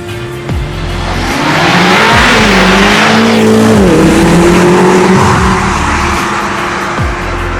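BMW M5 CS twin-turbo V8 accelerating through a Fabspeed catback exhaust; the engine note rises about a second in, drops briefly about four seconds in, then holds steady.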